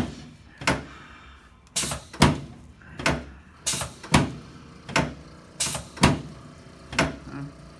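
Chiropractic adjusting table knocking again and again during a sacroiliac joint adjustment: about a dozen sharp clunks, often in quick pairs.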